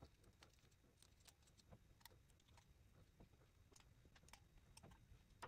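Near silence with faint, irregular small clicks as the fuel pressure regulator's cover screws are tightened down.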